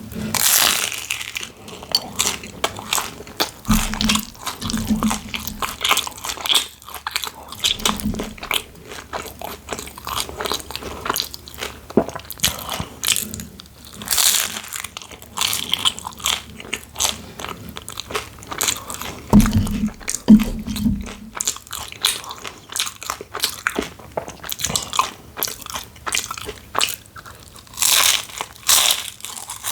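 A person chewing and biting spicy instant noodles, close to the microphone: a dense, continuous run of small wet mouth clicks and smacks, with a few short low bumps.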